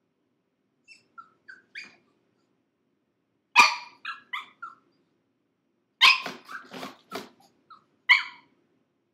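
Six-month-old pug puppy shut in a plastic crate, crying out in protest at being confined. First a few soft whines, then loud, shrill screaming yelps and barks in three outbursts, the last near the end.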